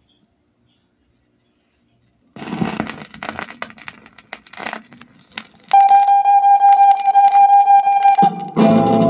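Vinyl 45 single played on a turntable: after a silent start, the stylus drops into the lead-in groove with crackle and pops about two seconds in. A long held note follows, and the full band of the 1960s go-go rock record comes in near the end.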